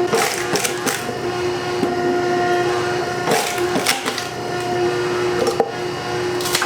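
Kitchen ambience: a steady machine hum with scattered sharp knocks and clicks from work at the grill.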